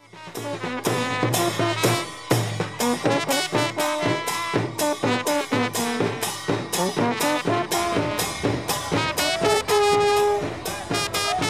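Brass band music with horns playing held notes over a steady drum beat.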